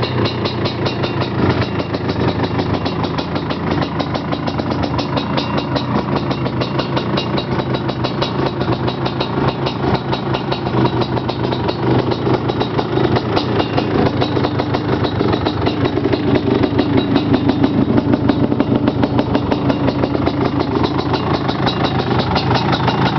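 1987 Suzuki LT500R Quadzilla's 500 cc two-stroke single-cylinder engine running with the quad standing still, a steady rapid beat of firing pulses. It grows a little louder and higher past the middle.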